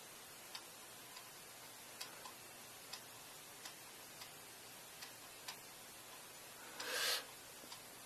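Faint, irregular clicks of a computer mouse, a second or so apart, over quiet room hiss, with one short, louder rushing noise about seven seconds in.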